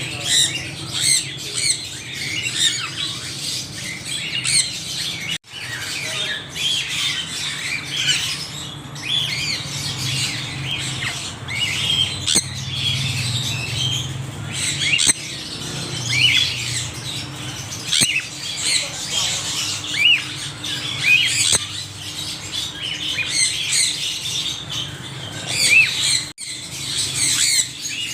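Many parrots chattering and squawking together in a dense, continuous flock chorus of short, high calls, with a steady low hum underneath. The chorus drops out for an instant twice.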